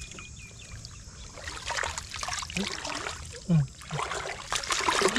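Shallow muddy pond water splashing and sloshing as hands and a bamboo basket work through it, getting busier and louder from about a second and a half in.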